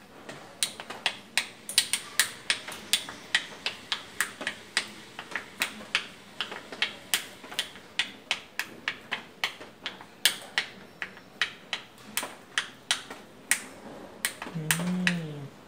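A steady run of sharp plastic clicks, about three a second, from a player fidgeting with checkers pieces at the board, clicking or tapping them together. Near the end a short low hum from a player.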